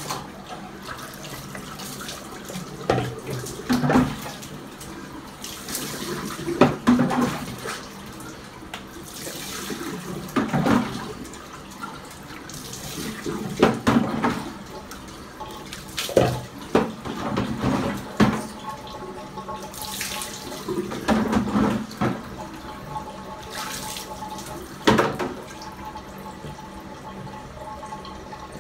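Bathroom sink tap running and splashing while a French bulldog is washed in the basin, with irregular louder splashes as hands scrub its wet coat.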